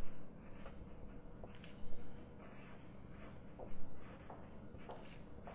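Felt-tip pen scratching across paper in a series of short strokes as letters and symbols are written, with a few louder strokes now and then.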